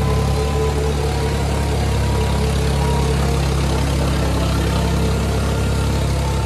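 Diesel engines of two tractors, a Kubota MU5501 and a New Holland 3600, running hard under heavy load as they pull against each other in a tug-of-war, a steady, even engine note with no let-up.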